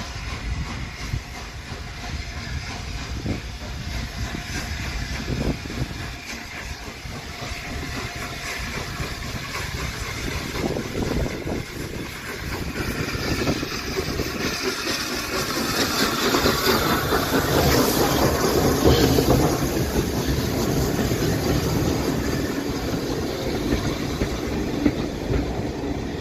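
Peppercorn Class A1 steam locomotive Tornado and its train running on the rails, wheels clattering over the track with some steam hiss. It grows louder as it comes near, loudest about two-thirds of the way through, then eases slightly.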